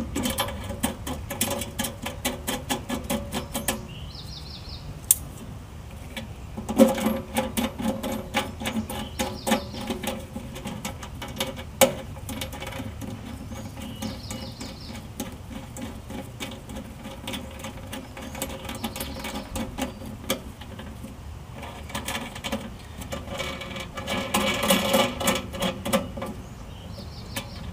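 Metal clicking and rattling as nuts and washers are threaded and tightened onto the motor-mount bolts of an air handler's blower housing. It comes in three runs of rapid clicks a few seconds long, with a few sharp single clinks between them.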